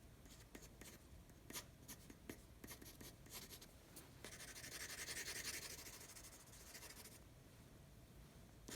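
Faint drawing strokes: a drawing tool scratching across the drawing surface in short quick strokes, with one longer continuous stroke from about four to seven seconds in.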